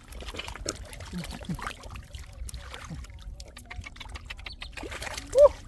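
Shallow muddy water trickling and splashing, with scattered small clicks. Near the end comes a short, loud high call that rises and falls.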